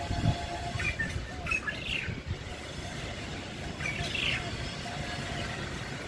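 Long-tailed shrike calling: a few short, high call notes spaced a second or two apart, over a steady low rumble.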